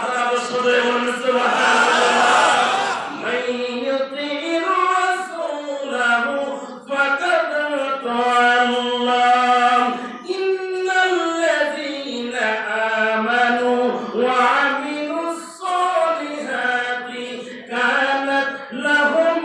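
A man's voice chanting a devotional song into a microphone, in long held notes that slide up and down with short breaks for breath.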